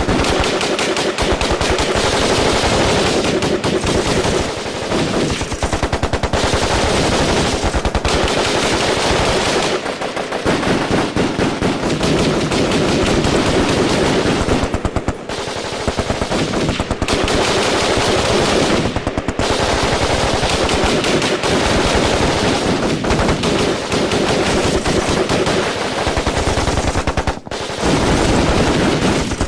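A firefight: heavy, near-continuous automatic gunfire, many rapid shots overlapping in long bursts, with brief lulls about ten, fifteen and twenty-seven seconds in.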